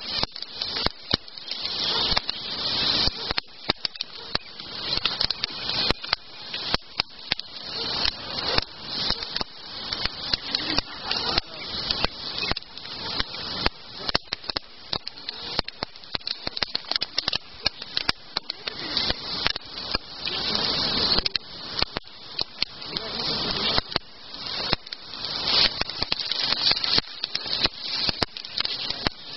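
Campfire crackling, with a thick run of irregular pops and snaps over a hiss that swells and fades.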